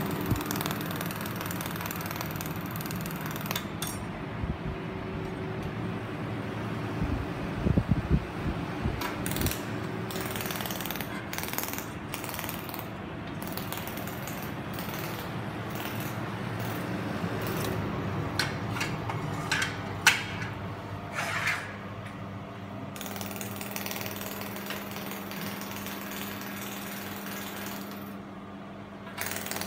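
300 W pulsed laser welding machine running with a steady hum while it fires its laser pulses in a rapid, jackhammer-like rattle. Scattered clicks and knocks come in clusters, about a third of the way in and again about two thirds in.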